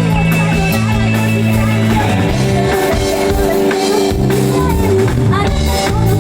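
Rock song played by a band, loud and steady, with electric guitar, bass and drums.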